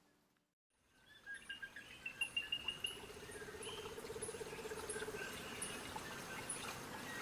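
Outdoor wildlife sounds starting about a second in: small birds chirping repeatedly with short high calls, and a buzzy trill in the middle, at a low level.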